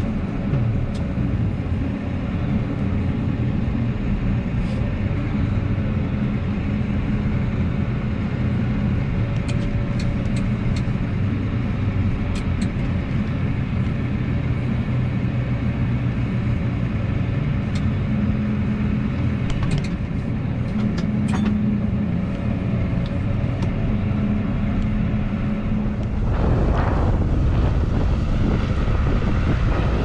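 Loader tractor's diesel engine running steadily, heard from inside the cab as the loader works, with a few light clicks in the middle. About 26 seconds in it gives way to wind buffeting the microphone.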